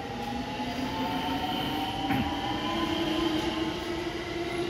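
JR West 223 series 2000-subseries electric train pulling away from the platform, its traction motors whining in slowly rising tones as it picks up speed.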